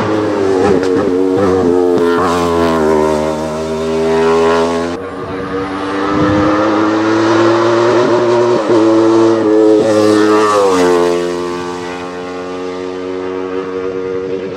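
Wolf Thunder sport prototype's racing engine at high revs, its pitch climbing as it accelerates hard uphill and dropping at a gearshift. The sound breaks off abruptly about five seconds in and picks up again on another pass.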